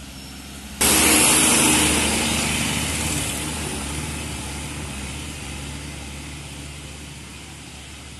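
A vehicle sound from very close by: a sudden loud rush of noise with engine hum beneath it, starting about a second in and slowly fading over the next several seconds.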